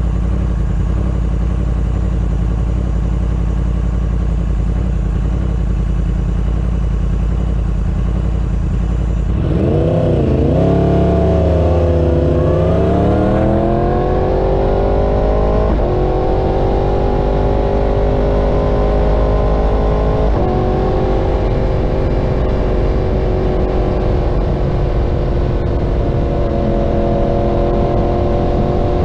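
Yamaha R1's inline-four engine through an aftermarket Graves exhaust, idling steadily for about nine seconds, then pulling away. The revs rise and drop back at two upshifts, then settle to a steady cruise.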